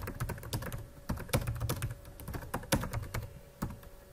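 Typing on a computer keyboard: a quick, uneven run of keystrokes that thins out near the end.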